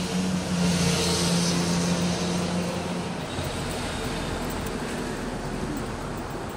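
Road traffic: a motor vehicle's engine hum passing close with a rush of tyre and air noise, fading away after about three seconds into general street noise.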